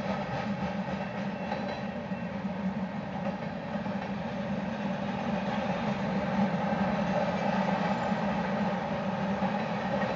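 Freight train cars of covered hoppers and boxcars rolling past close by, with the steady rumble and rattle of steel wheels on the rails. It grows a little louder about six seconds in.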